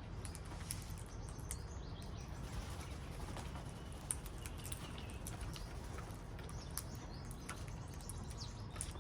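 Wild parrots giving short, scattered chirps and clicks over a steady low rumble.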